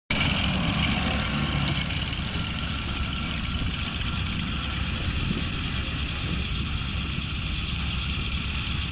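Large-scale radio-controlled model tanks running, a steady engine rumble, a little louder in the first two seconds.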